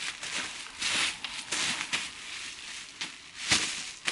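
Plastic bubble wrap crinkling and rustling irregularly as it is handled and pulled off a package, with a short knock about three and a half seconds in.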